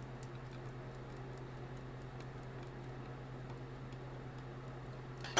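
Faint light ticks and clicks of clarinet keywork and small metal tools being handled at the A-flat key, over a steady low electrical hum; one sharp click near the end.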